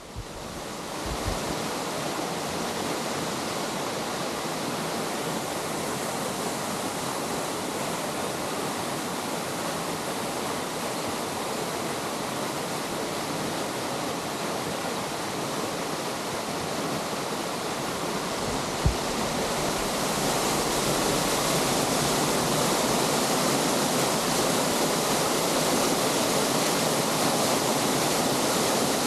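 Steady rushing of a waterfall about ten-odd metres high, an even roar of falling water that grows slightly louder about twenty seconds in. A single brief low thump sounds shortly before that.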